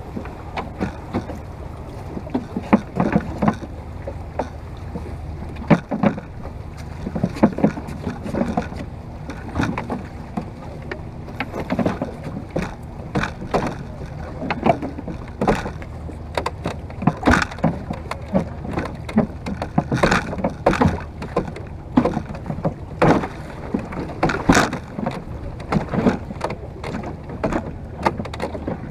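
Choppy water slapping and splashing irregularly against the wooden bow of a rowing boat under way, with sharp slaps every second or so over a steady wash of water and wind.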